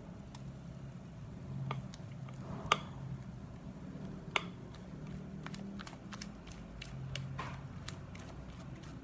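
Thick cake batter pouring and plopping into an aluminium tube pan, with a few sharp clicks, the clearest about three and four and a half seconds in, over a low steady hum.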